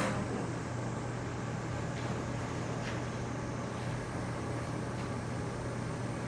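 Steady low mechanical hum with an even hiss, typical of a building's ventilation or air-conditioning, with two faint ticks about two and three seconds in.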